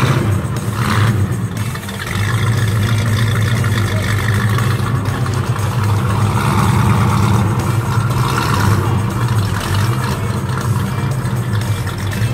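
A 1960s Pontiac's engine running with a steady low rumble as the car drives away at low speed.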